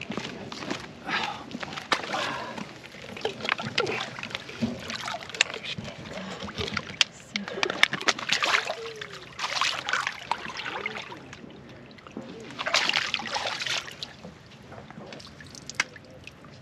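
A flathead catfish and a blue catfish splashing in shallow water as they are released, in irregular bursts, with the heaviest splashing about eight to ten seconds in and again around thirteen seconds, dying down near the end.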